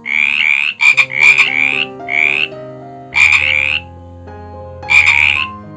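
Frog croaking in a series of short bouts of about half a second each, with brief pauses between them.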